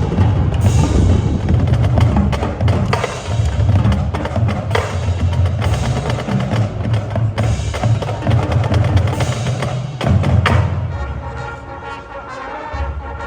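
Marching band playing: a loud percussion-driven passage of rapid drum strikes over low brass. About ten and a half seconds in the percussion drops out and the winds hold quieter sustained chords.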